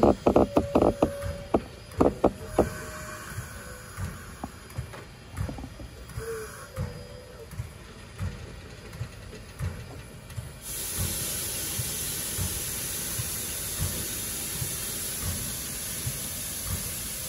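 Steam hissing steadily from a standing steam locomotive, Canadian Pacific 2-8-0 No. 3716, starting suddenly about two-thirds of the way through. Before it come a few sharp metallic clanks near the start and low irregular thumps.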